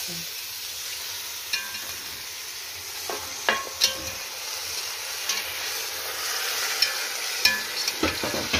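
Food frying in hot oil in a qozon (cauldron), a steady sizzle, while it is stirred, with the utensil clinking against the pot several times.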